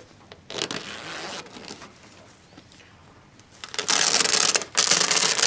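Zipper on a massage chair's seat upholstery being unzipped: a softer rasp about half a second in, then two long, loud rasps near the end.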